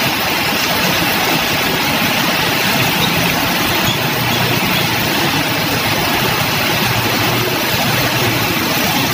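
Traffic of motorbikes, cars and trucks driving through floodwater in heavy rain. Engines run over a steady wash of rain and splashing water.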